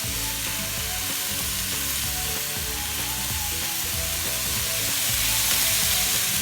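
Background music with short melody notes over a steady hiss.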